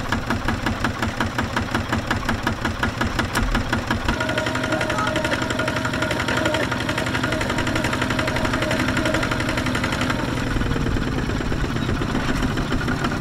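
Single-cylinder diesel engine of a Kubota walking tractor chugging with a slow, even beat. About four seconds in it revs up and runs steadily under load as it tries to drive its wheel out of the mud. Its pitch sags slightly near the end.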